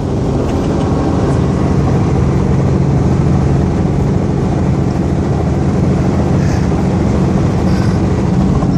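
Small helicopter's engine and rotor running steadily, heard from inside the cabin.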